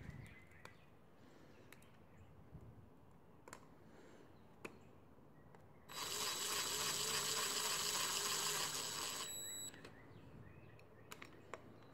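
DeWalt cordless drill/driver spinning as it runs a bolt down into a motorcycle cylinder head. It starts about six seconds in, runs steadily for nearly four seconds and stops abruptly. Faint clicks of small parts being handled come before it.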